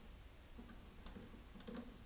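Faint, irregular small clicks of a hand tool working the screws on a mobility scooter's tiller, over a low steady hum.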